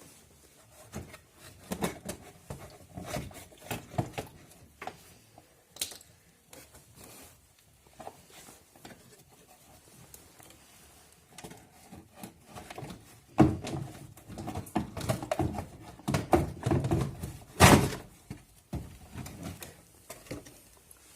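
Hands working on a car's windshield washer pump and its plastic fittings: scattered clicks and small knocks, then a busier run of knocking and rustling in the second half with one sharp knock near the end.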